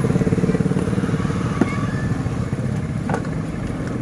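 Motorcycle engine running close by and fading as it moves off over the first couple of seconds.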